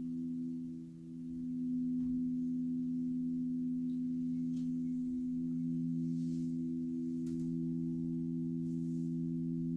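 Crystal Tones alchemy crystal singing bowls ringing together as several steady, overlapping low tones. The sound dips briefly about a second in, then swells back and holds, and the lowest tone grows stronger about halfway through.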